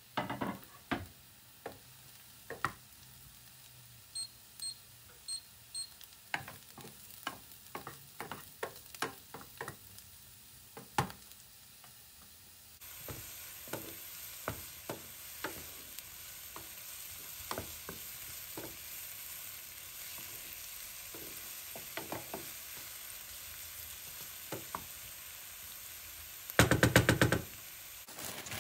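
Utensil clicks and knocks, with four short electronic beeps about four seconds in. About halfway through, food starts sizzling steadily in a frying pan, with a utensil tapping the pan as it is stirred, and there is a short loud rattle near the end.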